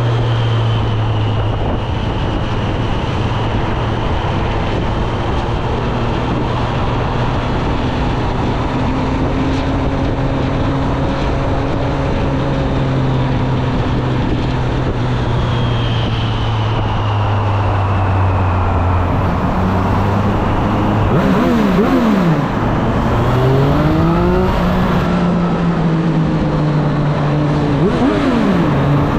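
The 765 cc inline-three engine of a 2024 Triumph Street Triple 765 RS running under way at a steady engine speed. About two-thirds of the way in, and again near the end, the revs drop sharply and climb back.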